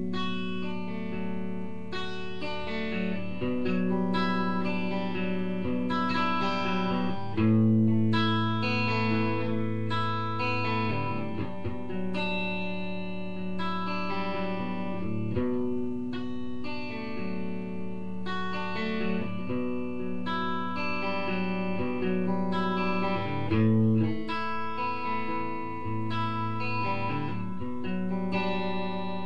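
Guitar music: plucked notes and chords ringing over sustained low notes, without a break.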